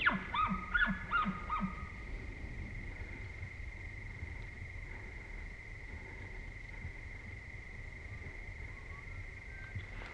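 Bull elk bugle: a run of falling whistled notes, each with a low grunt, repeating about every half second, dying away about two seconds in. After that, only a steady thin high tone over a faint background.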